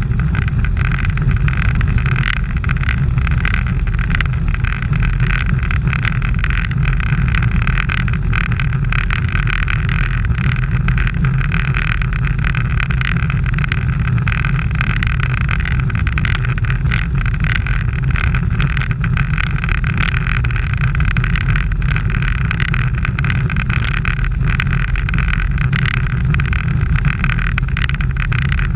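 Steady, loud rush of wind and tyre noise on asphalt picked up by an action camera mounted on a road bicycle moving at speed. It is an unbroken low rumble with a hiss above it, with no distinct events.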